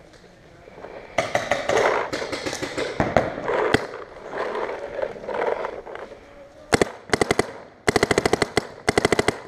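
Paintball markers firing in rapid strings of shots, with three loud quick bursts close by in the last few seconds.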